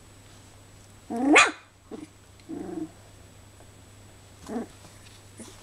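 Young Goldendoodle puppies calling out while they play-fight: a loud rising yelp about a second in, a lower, shorter call a second later, and a brief yip near the end.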